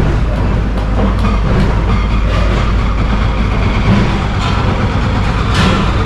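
A steady low engine rumble with a noisy haze and scattered short clicks and knocks.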